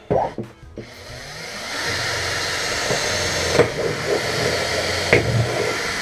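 Cordless drill drilling a small hole up through the bottom of a fridge cabinet. The motor spins up over the first couple of seconds and then runs steadily, with two sharp knocks as the bit catches in the panel.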